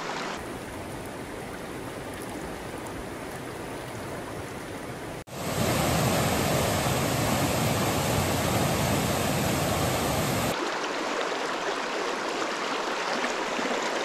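Mountain creek water running over rocks. About five seconds in it switches abruptly to the louder, fuller rush of a small waterfall cascading over boulders, which stops just as abruptly some five seconds later, leaving the creek's quieter flow.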